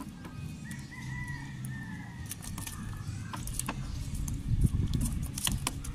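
A rooster crowing once, one long wavering call about a second in, over scattered knocks and rustling from a fishing net being hauled by hand into a wooden boat.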